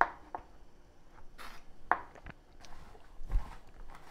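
Chef's knife cutting thin fresh pasta dough into fettuccine on a bamboo cutting board: four sharp knocks of the blade on the wood, the first the loudest. Near the end come softer handling sounds and a low thump as the cut noodles are gathered up.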